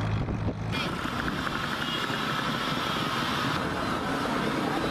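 Steady low engine drone from a moving car. Less than a second in, it changes abruptly to the noise of busy street traffic.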